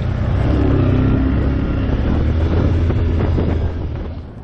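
ATV (quad) engine running with a deep, steady drone, a few sharp knocks about three seconds in, and the sound dropping away near the end.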